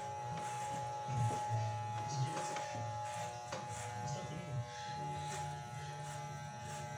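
Electric hair clippers running with a steady buzzing hum as they are passed over a man's scalp, shaving his head.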